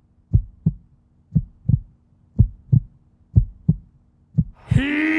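Heartbeat sound effect: deep double thumps, lub-dub, about once a second. Near the end a held musical tone with many overtones swells in.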